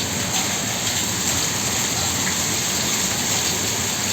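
Rain falling steadily, an even, unbroken wash of noise.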